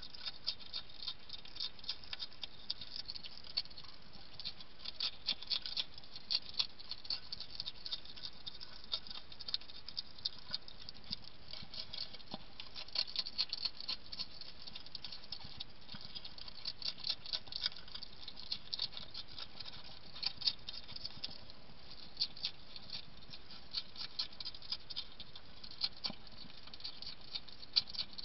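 A European hedgehog eating dry kitten food from a dish: a fast, irregular run of small crunching clicks as it chews.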